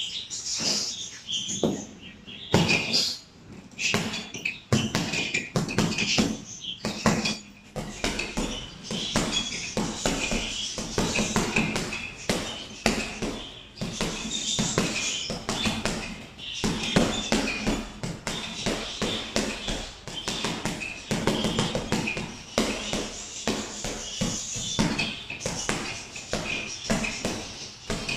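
Boxing gloves striking a Fairtex hanging heavy bag: a long run of punches, landing at an uneven pace with short gaps between combinations.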